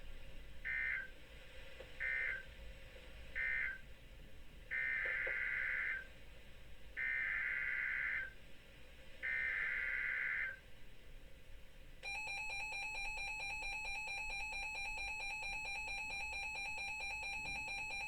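Emergency Alert System data bursts: three short buzzy end-of-message bursts closing the previous warning, then three longer SAME header bursts announcing the next one. About twelve seconds in, the steady two-tone EAS attention signal starts and holds.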